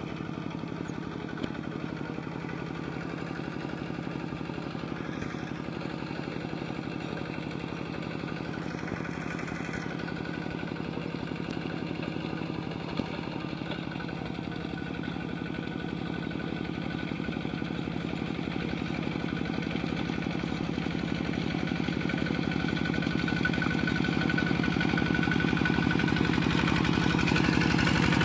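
Kubota RT120 single-cylinder diesel on a two-wheel walking tractor, running steadily under load as it drags a leveling board through paddy mud, with a fast, even firing beat. It grows louder through the second half as the tractor comes closer.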